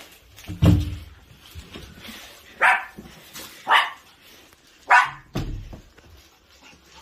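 A door thumps open about half a second in, then a long-haired Chihuahua gives three short, sharp barks about a second apart: excited barking at a visitor coming in.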